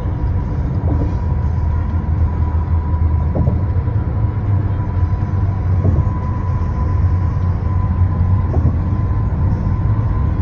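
Car cabin road noise at highway speed: a steady low rumble of tyres on concrete freeway pavement, with a faint steady high tone above it.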